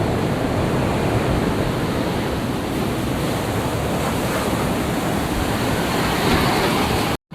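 Steady rush of sea surf, with wind buffeting the microphone; it cuts off suddenly near the end.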